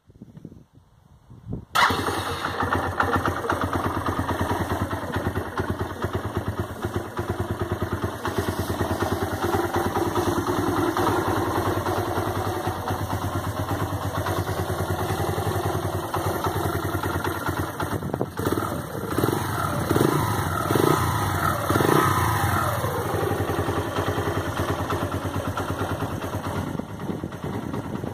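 Sinnis Apache motorcycle engine starting up about two seconds in and then running steadily, with a few throttle blips partway through. This is the bike running after its noise was fixed.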